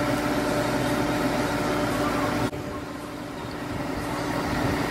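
Steady mechanical hum with a low drone. It drops suddenly about halfway through, then slowly rises again.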